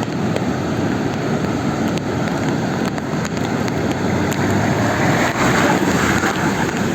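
Car driving through a flooded street: a steady rumble of engine and tyres mixed with rushing water, swelling into a louder rush of splashing about five seconds in.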